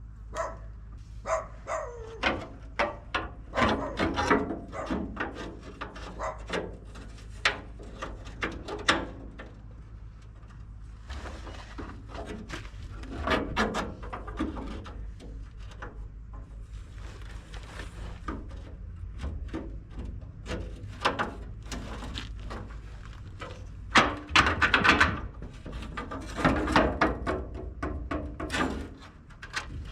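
Scattered knocks, clicks and scrapes of hand tools and metal parts being handled while a pickup truck's rear fuel tank and its straps are removed, with a louder cluster of knocks and rubbing near the end over a steady low hum.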